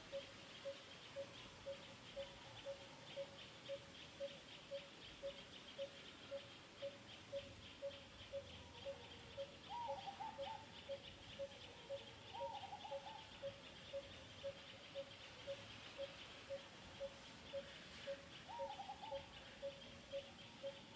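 Faint outdoor animal ambience: a bird repeats one short note about twice a second over a high, fast-pulsing insect buzz. Three brief wavering calls come about halfway through and near the end.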